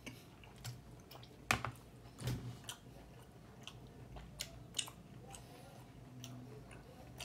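A person chewing a mouthful of food with the mouth closed: soft, irregular wet clicks and smacks, loudest about a second and a half in.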